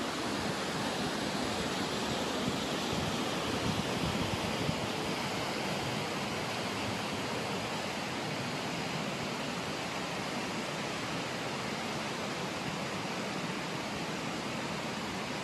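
Steady rush of the Radovna river's water through the gorge, an even hiss that holds without a break.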